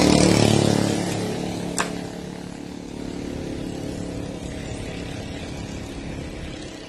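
A motor vehicle engine, loudest at the start and fading away over the next two seconds as it passes, leaving a fainter steady hum. A single sharp click comes about two seconds in.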